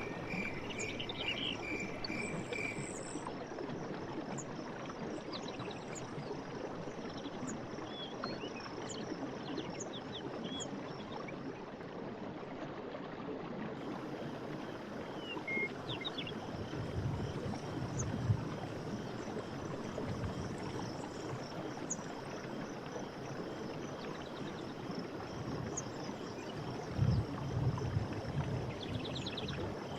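Night forest ambience: a steady rushing hiss with faint, scattered chirping calls of insects and frogs, one call pulsing rapidly for the first few seconds. A few soft low thumps come about halfway through and again near the end.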